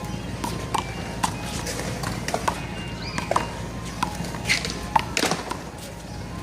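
A one-wall handball rally: a small rubber ball slapped by hand against the wall and bouncing off the court, a string of sharp smacks at irregular intervals.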